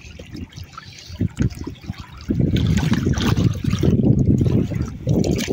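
Shallow lake water trickling and splashing around a wire keep basket of rudd as it is pulled and handled in the shallows. It grows much louder about two seconds in.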